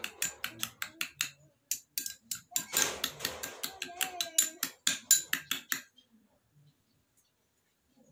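A metal spoon beating eggs in a small ceramic bowl, clinking against the bowl in a quick run of about four or five strokes a second. It stops about six seconds in.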